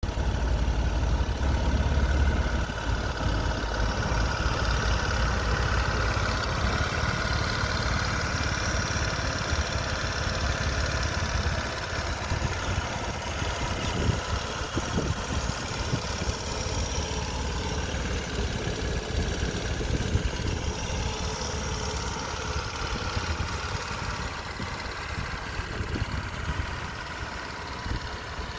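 Vespa Primavera scooter engine idling steadily, a little louder for the first couple of seconds.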